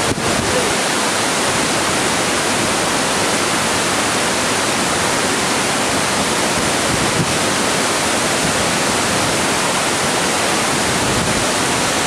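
Kuang Si waterfall pouring down its tiered cliff: a loud, steady rush of falling water.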